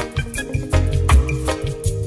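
Zimbabwean Afro-jazz song playing, with a bass line under a steady beat of about two hits a second.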